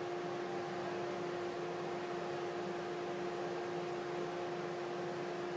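A steady hum holding one constant pitch, with a fainter overtone, over an even hiss.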